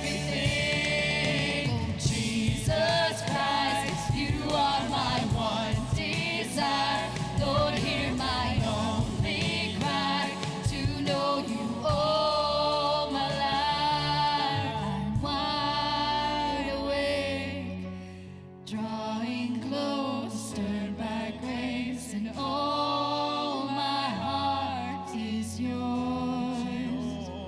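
Worship music: singers with a band accompaniment performing a gospel-style song, the sound dipping briefly about two-thirds of the way through before the singing picks up again.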